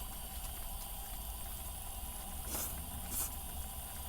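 A hot-pot simmering in a steady low background, with two short sharp clicks a little past halfway.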